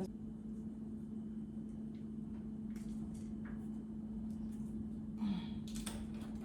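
A steady low electrical hum that switches on with a click, with a few light handling clicks and rustles over it.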